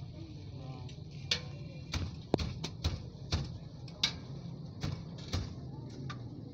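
Irregular sharp metallic clinks and taps, about ten of them, of a steel spatula against a flat-top griddle, over a steady low hum.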